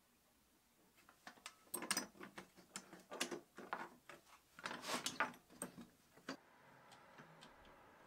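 Clicks and knocks of thin wooden strips and bar clamps being handled: the glued strips are laid into the clamps and the clamp jaws slid and screwed tight. An irregular run of taps starts about a second in and stops about six seconds in.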